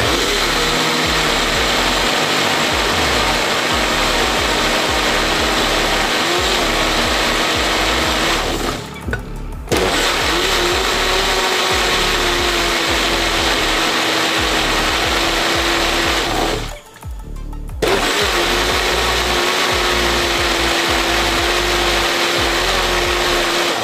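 Electric mixer grinder with a juicer jar running, juicing beetroot, carrots, tomato and ginger with water: a steady motor whine with a constant hum. It breaks off twice for about a second, once about a third of the way through and once about two thirds through.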